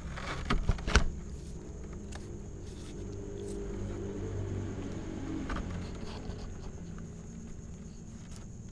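Cats chewing and eating cooked meat, with scattered small clicks over a low steady rumble; two sharp knocks about a second in are the loudest sounds.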